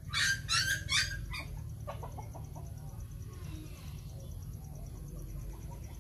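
A chicken gives three sharp, high squawks in the first second, then a quick run of short, low clucks.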